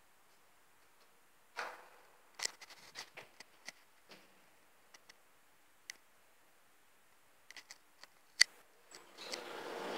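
Elevator car standing with its doors open: mostly quiet, with scattered light clicks and taps and one sharp click a little over eight seconds in. About nine seconds in, a steady mechanical noise starts and grows louder as the doors begin to move.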